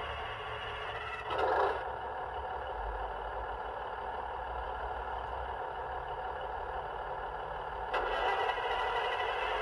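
Class 150 DMU diesel engine sound from a DCC sound decoder, played through the model's small speaker during a cold start. The engines crank for a longer time before starting, with a short louder burst about a second and a half in and the sound stepping up about eight seconds in.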